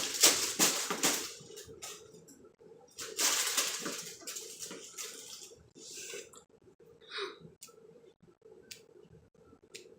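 Close-up rustling handling noise: two longer hissy rustles, one at the start and one about three seconds in, then a few short clicks and small rustles.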